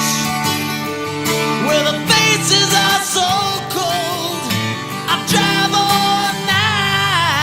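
Background music: a country-style song with acoustic guitar and a singing voice.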